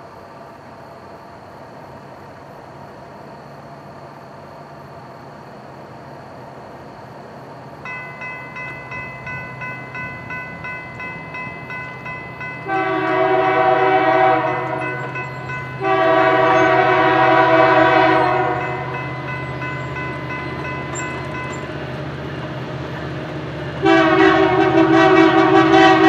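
A railroad crossing bell starts ringing about a third of the way in, a steady pulsing clang. Then the horn of an approaching Kansas City Southern SD70ACe diesel locomotive sounds two long blasts and starts a third near the end. Under it all, the low rumble of the train grows.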